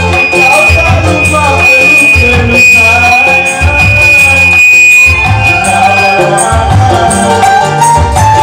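Loud dance music played over a sound system, with a heavy repeating bass line and a melody line above it. A steady high tone holds until about six seconds in, then stops.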